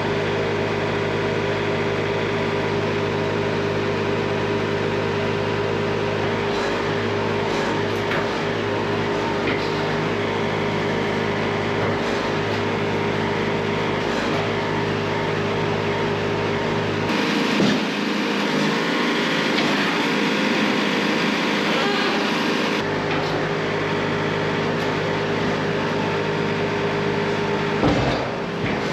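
Wood-Mizer LT70 band sawmill running steadily, its band blade sawing a black walnut log. For several seconds in the middle the low engine hum drops away and a hiss rises, then the steady hum returns.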